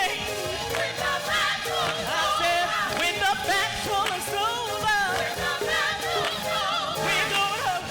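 Worship song in a church service: a voice singing a sliding, ornamented melody over instrumental accompaniment with held bass notes.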